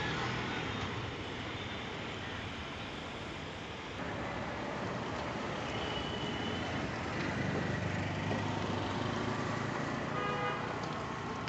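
Road traffic going by: a steady rush of passing vehicles, with an engine passing louder about seven seconds in and a short horn toot near the end.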